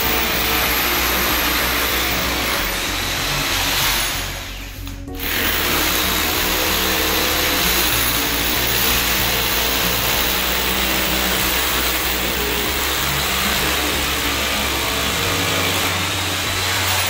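Corded electric drill boring into a stone floor at the base of a wall, running steadily with a short pause about four and a half seconds in. Background music plays under it.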